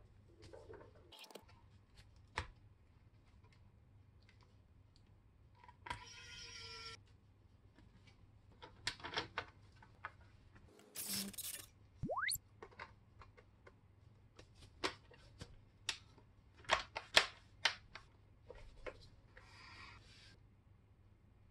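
Scattered plastic clicks, taps and knocks as a gaming laptop's bottom cover is fitted and the laptop is handled and turned over, the loudest knocks coming in a cluster about two-thirds of the way through. A short, quick rising whistle sounds about twelve seconds in.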